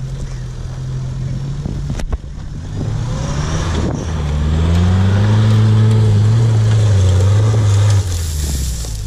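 Mitsubishi L200 pickup's engine revving hard under load as it accelerates up a loose dirt bank. The pitch rises and holds high for a few seconds, then cuts back sharply near the end. A steadier engine note runs for the first couple of seconds, broken by a sharp click.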